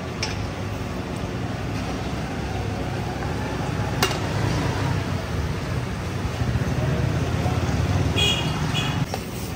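Steady low kitchen rumble around a large pot of boiling rice, with one sharp knock about four seconds in and a couple of brief high-pitched tones near the end.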